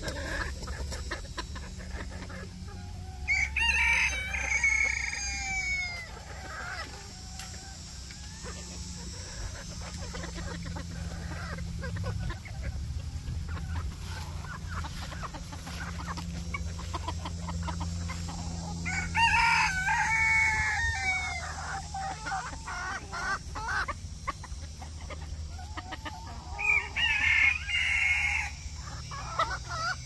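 Roosters crowing three times, each crow lasting a couple of seconds, with softer clucking in between.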